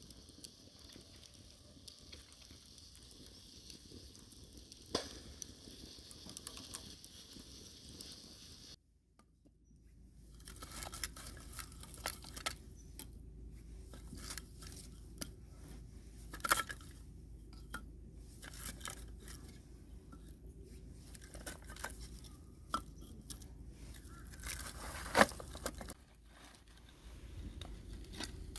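Wood fire burning, its split firewood crackling with scattered sharp pops. The sound cuts out briefly about nine seconds in, then the crackling resumes denser, with a few louder pops.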